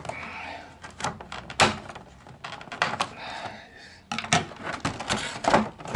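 Clear plastic packaging tray crinkling and clicking as a toy figure is handled and worked free, with a string of sharp clicks and knocks.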